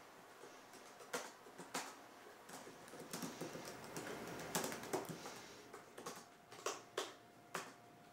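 Typing on a laptop keyboard: irregular keystroke clicks, a few at a time, with a busier run of typing in the middle and a few sharper key taps near the end.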